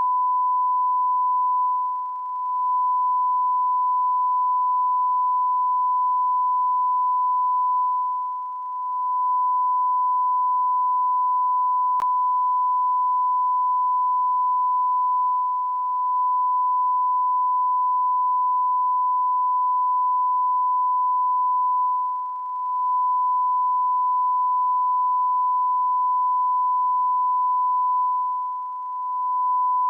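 Continuous electronic beep: a single steady, high-pitched pure tone held without a break, dipping briefly in loudness five times, about every six seconds.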